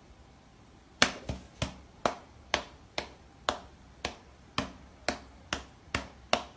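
A cat's paws slapping against a person's open hand, a dozen or so sharp smacks about two a second, starting about a second in.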